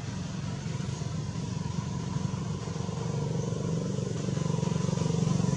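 Low, steady rumble of a motor vehicle engine, slowly growing louder toward the end.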